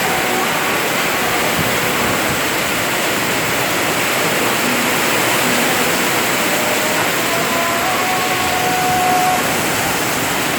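Heavy rain with strong wind, a loud steady rush of noise.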